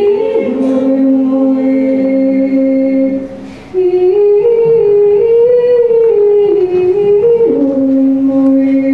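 A woman's solo voice singing long held notes through a handheld microphone, with a short break about three and a half seconds in before the next phrase.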